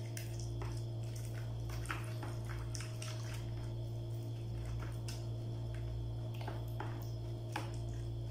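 Gulaman (agar jelly) cubes being stirred into a thick cream-and-milk mixture in a plastic bowl, with scattered soft clicks and squishes, over a steady low hum.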